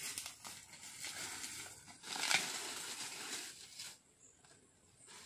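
Dry rustling and crinkling with small crackles, strongest about two seconds in and dying away after about four seconds.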